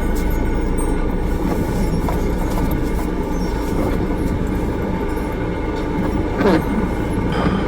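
Steady drone of a camper van's engine and tyres on the road, heard from inside the cab while driving.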